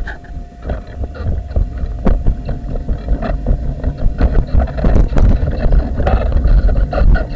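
Wind buffeting a wheelchair-mounted camera's microphone as a heavy, uneven low rumble, with scattered knocks and rattles.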